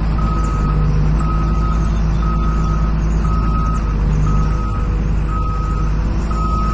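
Scania truck's reversing alarm beeping steadily about once a second, each beep about half a second long, over the low steady running of the truck's engine as it backs up.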